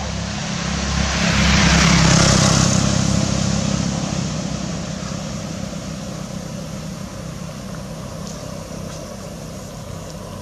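A motor vehicle passing by: its engine hum and road noise grow louder to a peak about two seconds in, then fade away.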